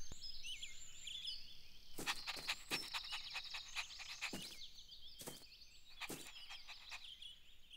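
Faint outdoor ambience of small birds chirping over and over, with a scattering of light taps in the middle.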